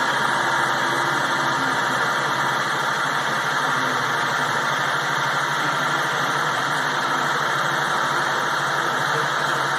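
Steady machine drone, an even hum under a hiss, from the power drive running a Douglas A-26 Invader's wing flaps as they extend slowly during a ground test.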